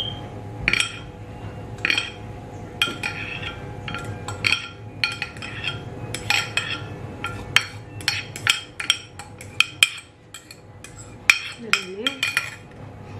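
Spoon clinking and scraping against a metal dish while scooping out beaten egg-white foam: a run of irregular, ringing clinks that come thicker in the middle.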